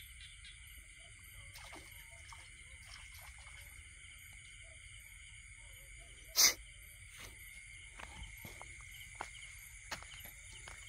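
Night insect chorus: several insects shrill steadily, with a faint high chirp repeating about twice a second and scattered light clicks. One brief, sharp, loud noise cuts in about six seconds in.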